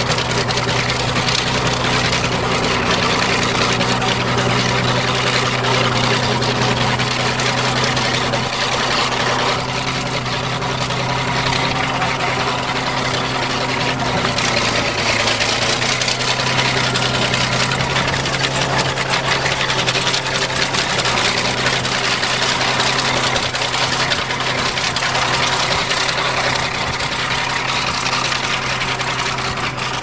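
Bulldozer engine running steadily, its pitch dipping slightly about halfway through.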